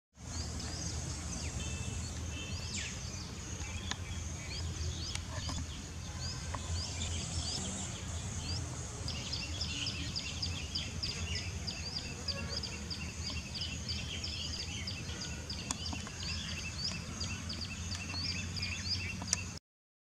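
Outdoor ambience: small birds chirping, many short rising chirps that come thicker in the second half, over a steady high hiss and a constant low rumble. It cuts off abruptly just before the end.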